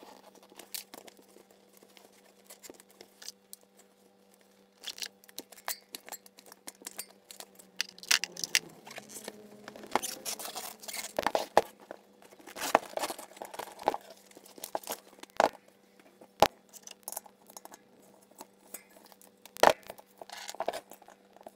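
A rubber tyre being worked off a 20-inch spoked bicycle rim by hand, then the inner tube pulled out: scattered rubbing and scuffing with sharp clicks and taps, sparse at first and much busier from about eight seconds in.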